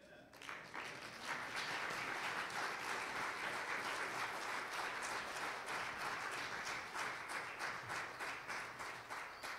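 Church congregation applauding, building up within the first second and then holding steady.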